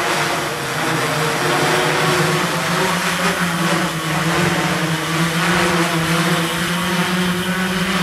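Hexacopter's six electric motors and propellers giving a steady buzzing hum as it descends, over the rushing of strong wind.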